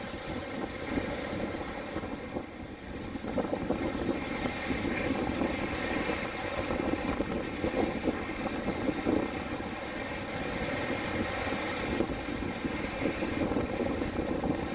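Small waves breaking and washing up a sandy shore in choppy, windy water, a continuous rush that swells with each breaking wave, over a rough rumble of wind on the microphone.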